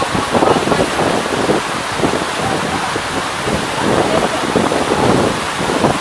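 Steady rushing noise of water running and falling over rock, with wind buffeting the microphone.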